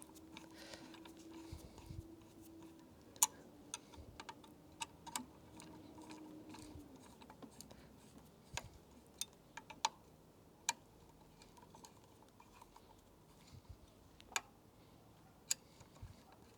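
Irregular small clicks and taps of a hand tool against metal fittings as screws are turned by hand during an e-bike kit install. A faint steady hum sits under the first seven seconds or so.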